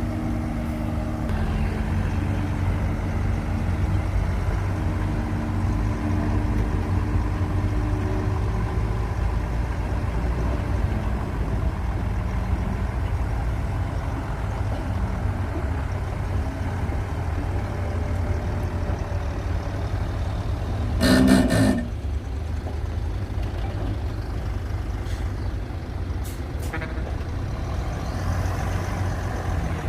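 Heavy diesel earthmoving machinery (bulldozers and dump trucks) running steadily, with engine tones shifting in the first several seconds. A short, loud burst comes about two-thirds of the way through.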